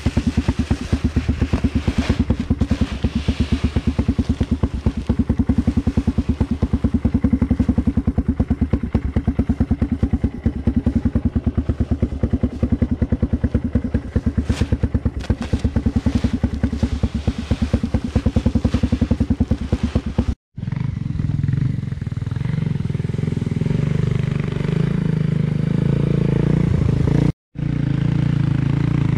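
ATV engine idling close by with a rapid, even putter, while pelletized lime is poured from a bag into a tow-behind spreader's hopper. About twenty seconds in, after a cut, an ATV engine runs steadily under way, towing the spreader as it throws lime.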